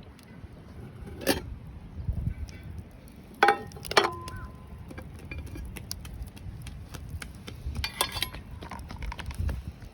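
A few sharp clinks and knocks of dishes and utensils, one leaving a short ring, with a cluster of small clinks near the end.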